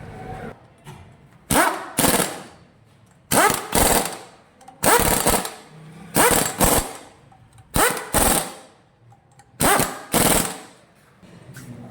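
Impact wrench rattling in short bursts on bolts, the bursts coming in pairs about half a second apart, six pairs in all.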